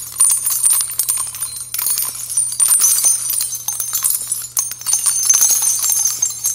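Jingling bells sound effect, a dense high-pitched shimmer of many small tinkling clicks that keeps going without a break.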